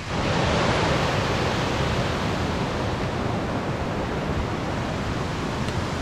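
Fast mountain river rushing: a loud, even noise of tumbling water with no distinct splashes.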